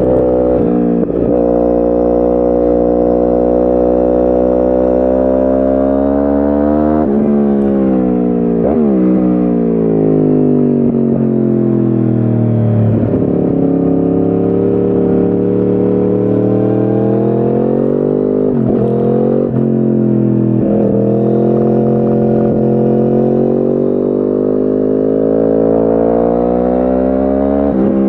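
2010 Yamaha R1's crossplane inline-four through a decat Akrapovic exhaust, heard onboard while riding. The revs fall away to a low point about halfway through, with abrupt gear-change jumps a quarter of the way in, then climb steadily again through further quick shifts.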